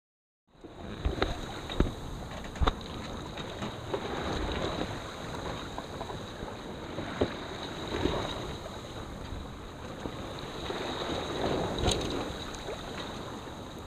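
Water rushing and splashing along the hull of a 36-foot Victoria sloop under sail, with a few sharper slaps in the first three seconds. Wind buffets the microphone.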